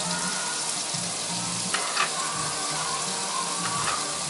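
Ground turkey burger patties sizzling steadily in a frying pan, with a few sharp knife taps on a cutting board as a Roma tomato is sliced.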